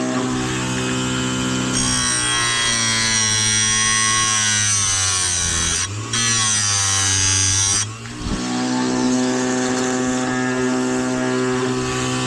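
Electric chainsaw chain sharpener running with a steady motor hum; about two seconds in its grinding wheel goes onto a chain cutter with a harsh grinding sound for about six seconds, with a brief break near the middle, then back to the motor hum alone.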